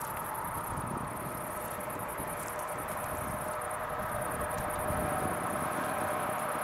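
A train approaching on the line, a steady rumble and hum that grows slowly louder.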